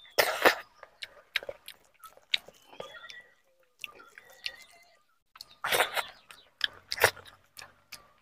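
Close-miked chewing of a mouthful of rice and meat: wet smacks and crunches in irregular clusters, loudest about half a second in and again around six and seven seconds in.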